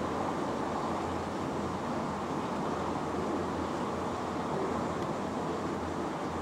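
A steady low rumble of an engine running without change.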